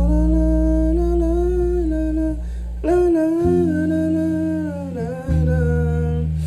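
Electric bass guitar playing three long, held low notes, changing about three and five seconds in, while a man hums a gliding melody over them in two phrases.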